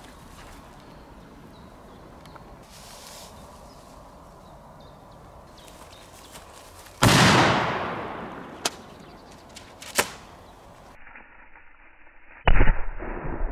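Two big firecracker explosions: a sudden bang about halfway through with a long fading echo, followed by two short sharp cracks, then a second, louder blast near the end.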